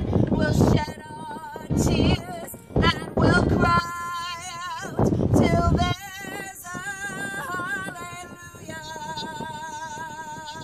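A woman singing a song to acoustic guitar and violin, her voice and the violin wavering with vibrato. Several loud low rumbling bursts, about a second each, break over the music in the first half.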